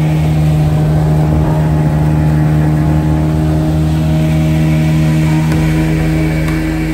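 Speedboat engine running steadily at speed, a constant low drone, over the rush of wind and water as the boat moves.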